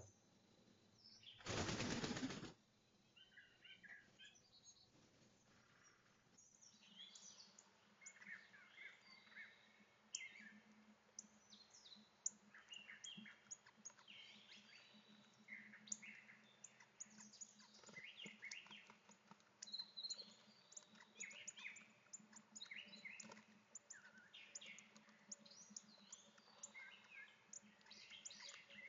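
Faint chorus of small songbirds: many short chirps and twitters that thicken from about six seconds in. About two seconds in comes a brief rush of noise lasting about a second, and a faint steady low hum sits underneath.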